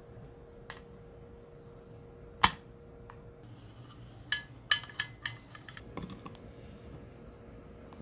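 A ceramic plate set down with one sharp knock, followed a couple of seconds later by a quick run of light ringing clinks and taps of dishware being handled.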